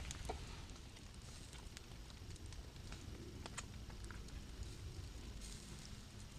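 Wood campfire crackling faintly: scattered sharp pops over a low steady rumble.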